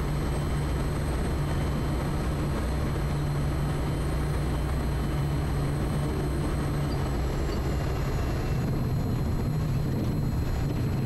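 Quest Kodiak 100's Pratt & Whitney PT6A turboprop engine and propeller droning steadily through the landing on a grass airstrip. A faint high whine slides slightly lower about seven seconds in.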